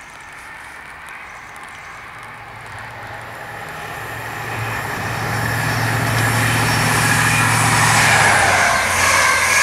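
A train approaching along the line, growing steadily louder, with a steady low engine hum that fades out about a second before the end as the rushing noise of the train builds.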